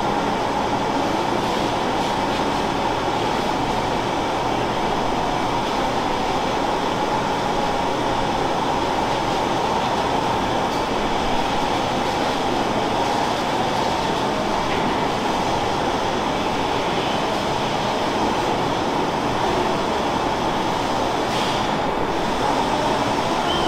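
Milking parlor machinery running: a steady, unbroken hiss and hum from the milking units and their vacuum lines.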